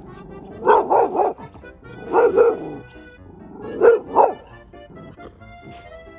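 A medium-sized dog barking in three quick bursts: three barks, then two, then two, over background music.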